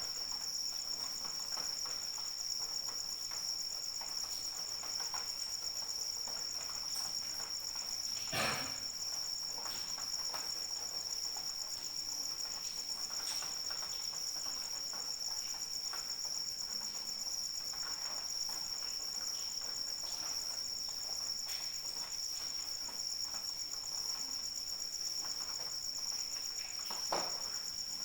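Crickets trilling in a steady, continuous high-pitched chorus, with light rain dripping in scattered clicks; one louder drop lands about a third of the way in and another near the end.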